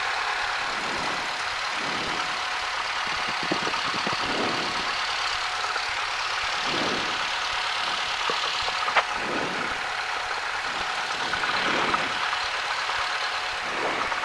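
Cessna 172's piston engine and propeller running steadily at low power while taxiing, heard inside the cabin as an even drone, with a single click about nine seconds in.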